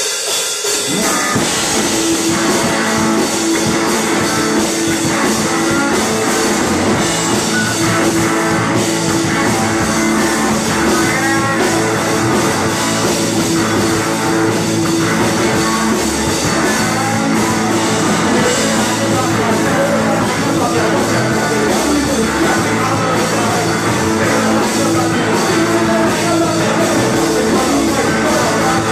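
Live rock band playing loud: electric guitars and a drum kit, with the bass and drums filling in fully just after the start.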